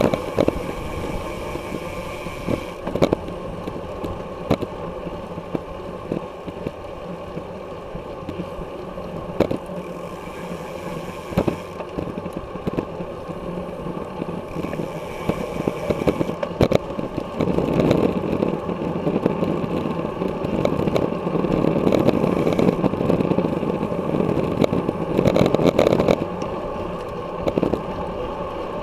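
Wind rush on the microphone of a camera mounted on a road bicycle riding in a racing pack, with tyre and road noise and scattered sharp clicks and rattles from the bike. The rush grows louder and denser from a little past halfway and eases off near the end.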